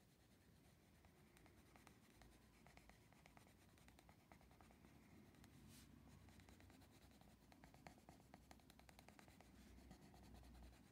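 Faint scratching of a Derwent Coloursoft pencil crayon shading on paper, in many short strokes.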